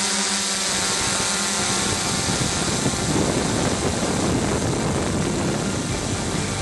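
Hexacopter drone's electric motors and propellers whirring steadily in flight, a constant hum of several steady tones over a rushing, wind-like noise.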